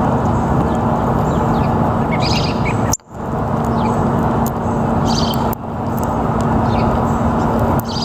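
Small birds chirping in a few short bursts over a steady, louder rumble of background noise with a low constant hum. The sound cuts out briefly about three seconds in.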